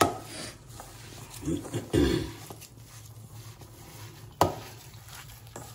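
Hand mixing a coarse ground chana dal masala vada mixture in a steel bowl, with two sharp knocks about four seconds apart.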